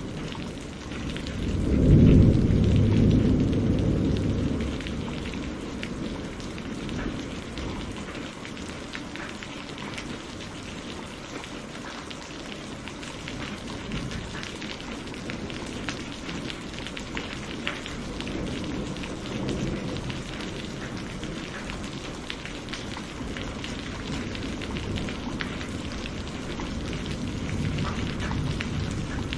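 Steady heavy rain with a loud roll of thunder about two seconds in that fades over a few seconds, and fainter distant rumbles later.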